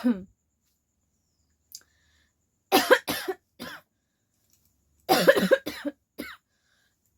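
A person coughing in two bursts of about four coughs each, around three and five seconds in, after the tail of a cough right at the start.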